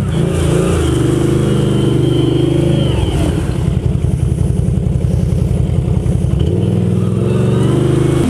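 Can-Am Renegade ATV's V-twin engine running at high revs, dropping to low, pulsing revs about three seconds in, then revving back up near the end.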